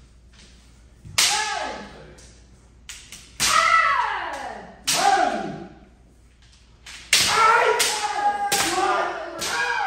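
Kendo kiai: about six sharp yells that each slide down in pitch, struck out together with the crack of bamboo shinai hitting armour and a stamp on the wooden floor.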